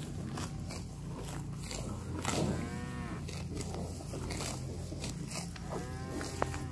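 White cattle grazing: repeated crunching and tearing as they crop grass. A moo about two seconds in and another shorter moo near the end.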